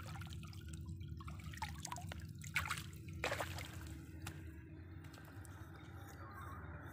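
Shallow water splashing and dripping as hands grab and handle a fish in a muddy stream, with a few sharp splashes in the first three or so seconds. Then only a faint steady hiss.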